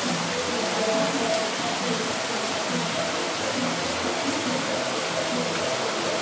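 Heavy rain pouring down in a steady, even hiss, with water running off the roofs. Faint music plays underneath.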